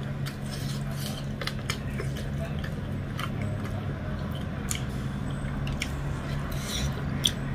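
Close-up eating sounds: chewing with lip smacks and soft wet squishes as fingers work dhido and chicken curry, in scattered short clicks over a steady low hum.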